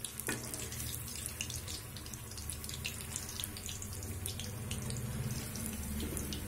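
Besan-battered boiled potatoes deep-frying in hot oil in an iron kadhai over a high flame: a steady sizzle with many small crackles and pops.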